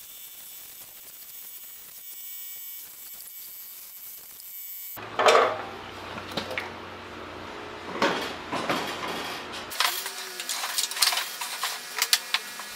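Clunks and metallic rattles from handling a sliding compound mitre saw as it is moved and set in place, with one sharp knock about five seconds in, after a few seconds of faint steady hiss.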